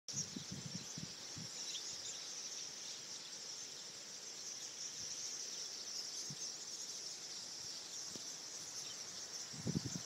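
A large flock of small birds calling all at once, a dense, steady high-pitched twittering chatter. A few low thumps sound in the first second and a half.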